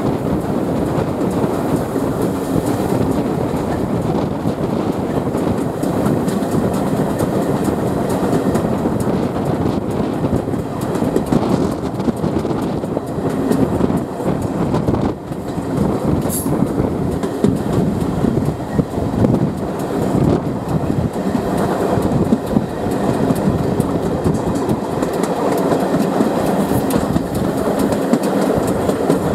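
Steam-hauled heritage train running along the line, heard from a coach window: steady wheel and track noise from the carriages. A brief high-pitched sound comes about sixteen seconds in.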